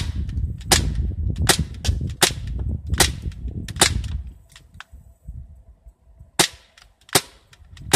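Crosman P10 Phantom CO2-powered semi-automatic BB pistol firing a string of sharp pops, about one every three-quarters of a second for six shots, then a pause and two more. The pistol is cycling shot after shot without jamming.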